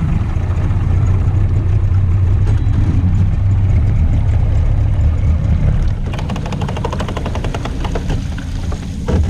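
Low rumble of a pickup truck towing a boat on its trailer out of the water and up the ramp. The rumble eases about six seconds in, and a fast, even run of ticking or rattling follows.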